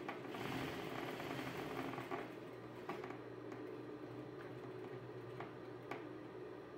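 Industrial sewing machine running, stitching a seam through layered fabric: a steady hum, louder for the first two seconds, with a few faint clicks later on.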